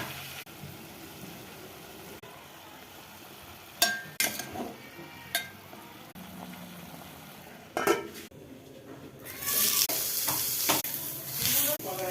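Food sizzling as it fries in a pan, with a spoon knocking against the pan a few times while it is stirred. The sizzling grows much louder about nine seconds in.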